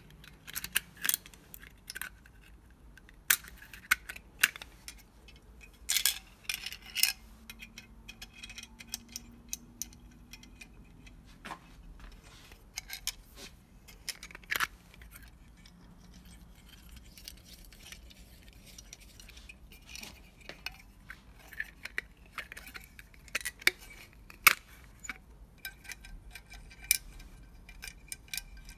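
Irregular small metallic clicks and clinks from handling steam-generator heating elements and their steel cover plate, with the brass terminal nuts knocking against the plate.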